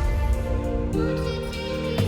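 Background music: sustained pitched notes that change about once a second, with no words.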